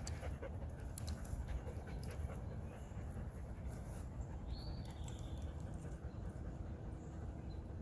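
A dog panting steadily close by.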